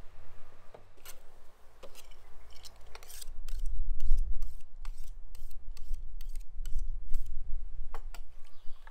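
Kitchen knife being sharpened on a sharpening steel: quick, even metal-on-metal scraping strokes, about three a second, for several seconds in the middle, with a few single strokes before and after. A low rumble runs underneath.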